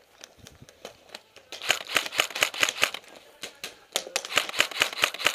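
Airsoft rifle firing two rapid strings of sharp clicking shots, about eight a second: the first starts about a second and a half in and lasts about a second and a half, the second starts about four seconds in and carries on to the end.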